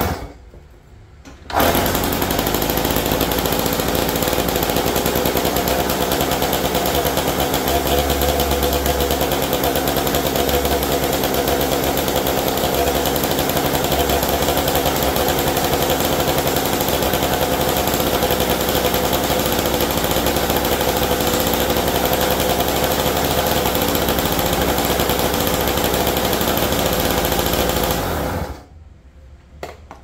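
Yamaha PW80's small single-cylinder two-stroke engine, freshly rebuilt after a locked-up motor, running steadily. It starts abruptly about a second and a half in and cuts off shortly before the end.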